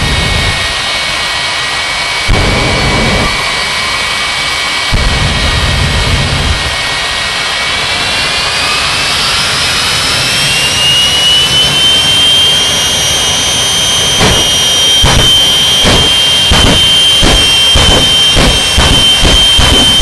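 Jet car turbine engines whining steadily, with two deep afterburner blasts in the first few seconds. About eight seconds in, the turbine whine climbs in pitch and holds higher. From about fourteen seconds the afterburner is pulsed in rapid bursts that come faster and faster.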